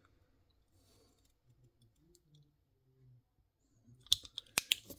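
Quiet room tone for about four seconds, then a quick run of sharp clicks and light knocks near the end from a small metal flashlight and a diecast pickup model being handled.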